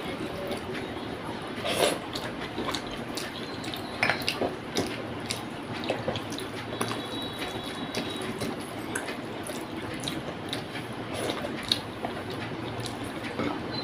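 Close-up eating sounds: chewing a mouthful of rice with wet mouth clicks and smacks, with fingers mixing rice in a plate between bites.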